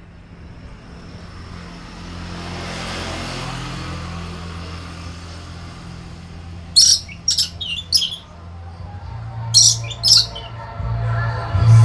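Lory (nuri parrot) squawking: a quick run of about five harsh, shrill calls about seven seconds in, then two more a couple of seconds later, over a low steady hum.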